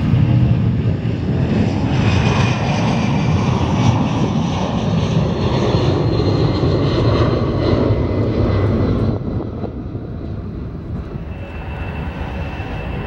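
Twin jet engines of a Boeing 757 freighter at takeoff power as it lifts off and climbs away, a loud, steady rush. About nine seconds in, the sound drops suddenly to a quieter, more distant jet airliner taking off.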